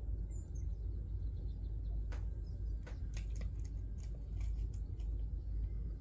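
Sparrows giving short chirps, scattered and irregular from about two seconds in, over a steady low rumble.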